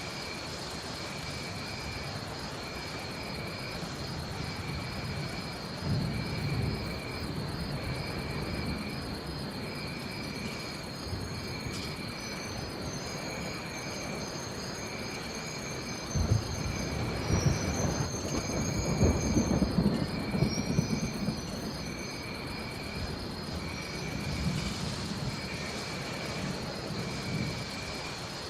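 Steady rain with rolling thunder over a chorus of jungle animals: a continuous high trill and a chirp repeating about once a second. High wavering calls come in several times in the middle. The thunder swells loudest in the second half.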